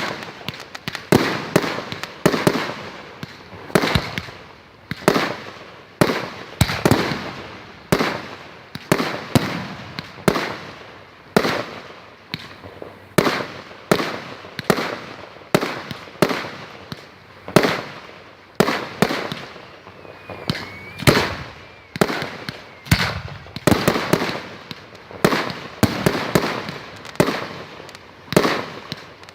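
Fireworks going off in a steady barrage, a sharp bang about every half second to second, each trailing off before the next.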